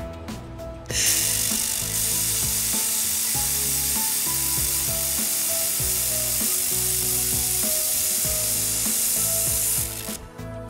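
Handheld fiber laser welder with wire feed, its wobble head in triangle mode, welding a seam in sheet metal: a loud steady hiss that starts abruptly about a second in and cuts off near the end. Background music plays underneath.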